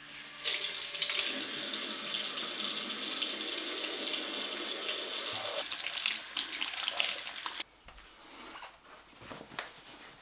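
Kitchen tap running into a ceramic farmhouse sink while hands are rinsed under the stream. The water cuts off abruptly about three quarters of the way through, leaving only faint, scattered sounds.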